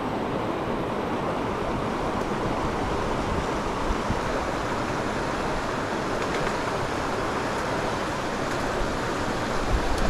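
Mountain stream rushing steadily, with a brief low rumble right at the end.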